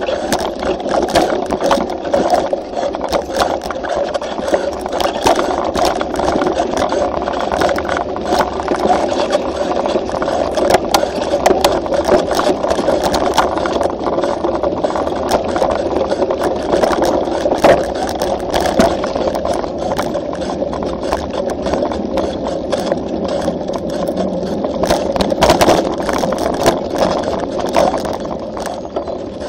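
Mountain bike rattling over a rough dirt trail at speed, its tyres rolling on dirt and gravel, with many sharp knocks from bumps, heard through a camera mounted on the bike.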